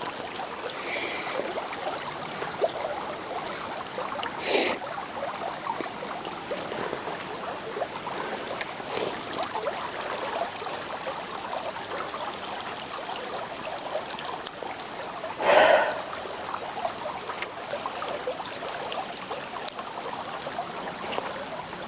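Stream water running steadily, with scattered small ticks and two brief louder rushes of noise, one about four seconds in and one about fifteen seconds in.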